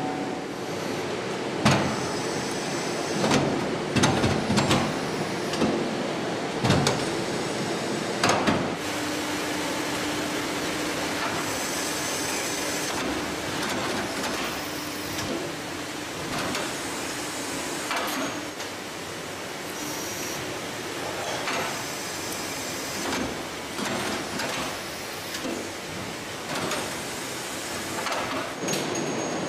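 Factory floor noise on a motorcycle production line: a steady machine hum with several sharp knocks and clanks in the first few seconds, and short high air hisses later on.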